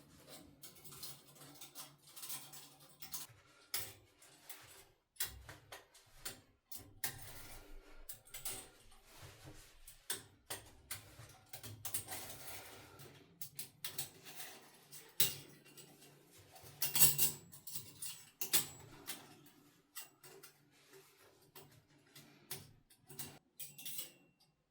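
Rustling with scattered clicks and knocks of things being handled, the loudest cluster about seventeen seconds in.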